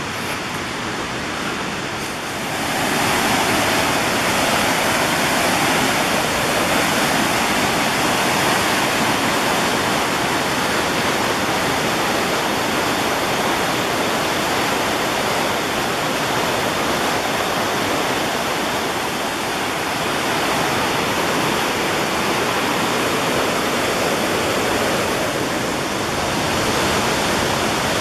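Whitewater rushing over the boulders of Buttermilk Falls, a river cascade. It is a steady rush of water that grows louder about two and a half seconds in, then holds.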